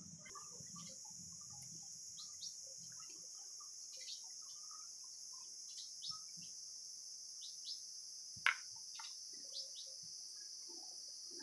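Faint ambience of a steady high insect drone with short chirps repeating here and there, and one sharp click about eight and a half seconds in.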